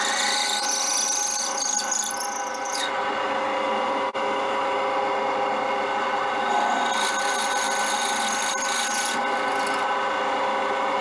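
Bench drill press running a 3/8 in twist drill through aluminium bar: a steady motor and spindle hum with cutting noise, and a high scraping squeal that rises twice, near the start and again in the second half. The drill is worn on its lands and slightly binding in the hole.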